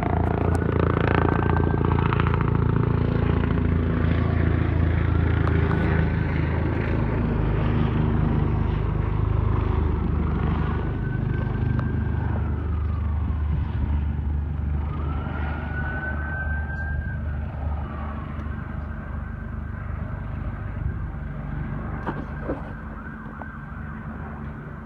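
Helicopter circling low overhead, the rapid thudding of its rotor loud at first and then slowly fading as it moves off. Over it a high whine rises, holds and falls about four times.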